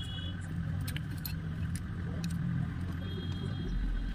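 Light metallic clicks and clinks of engine parts being handled and fitted in a motorcycle's open crankcase, a few sharp ticks in the first half, over a steady low hum.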